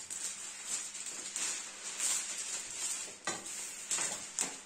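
Crinkling and rustling of a diamond-painting canvas and its cover sheets being handled, scratchy and irregular, with a couple of sharper taps near the end.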